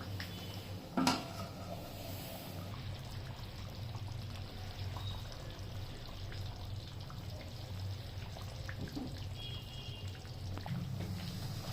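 Liquid sounds from the chicken curry pot, trickling and dripping over a steady low hum, with one sharp knock about a second in.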